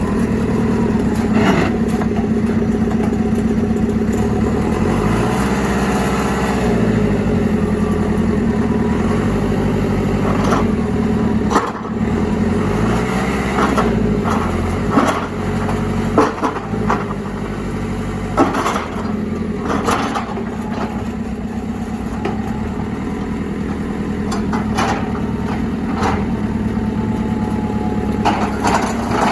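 JCB 3CX backhoe loader's diesel engine running, its pitch swinging up and down twice as it works. Sharp metallic clanks and knocks come at intervals throughout.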